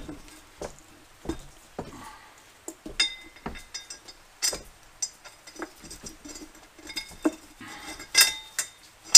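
A thin metal wire tool clinking and tapping against a steel mower wheel rim as it is worked inside the tire. Irregular sharp metallic clicks, a few of them ringing briefly, with the loudest near the end.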